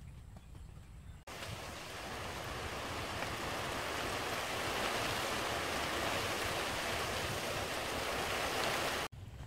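Steady rush of flowing water that starts abruptly about a second in, grows a little louder, and cuts off sharply near the end, after a few faint ticks at the start.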